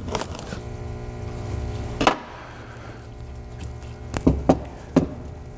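A loose brake caliper knocking and clunking against a steel workbench as it is picked up and handled: one loud knock about two seconds in and three quicker knocks near the end, over a steady hum.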